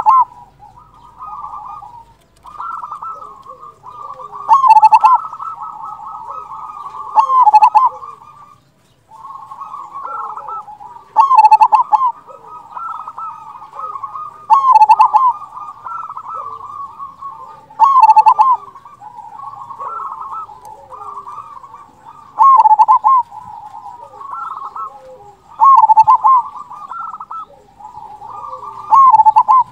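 Zebra dove (perkutut) singing: runs of rapid rolling coos, each phrase closing in a loud, big 'kung' note, repeated about every three to four seconds.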